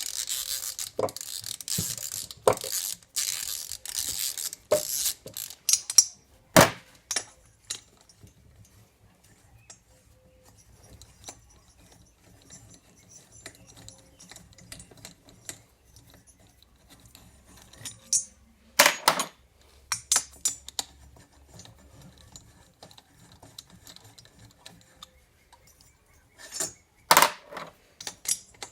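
Hand work with metal tools on a scooter engine: rapid clicking and clatter of metal parts for the first six seconds, a single sharp knock soon after, then mostly quiet with faint small clicks, broken by two short bursts of clatter about two-thirds of the way in and near the end.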